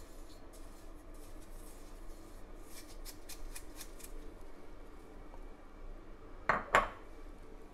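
Gloved fingers stirring and rubbing a dry ground-spice blend in a ceramic bowl, a faint gritty scratching. Near the end there are two sharp knocks, the bowl set down on the countertop.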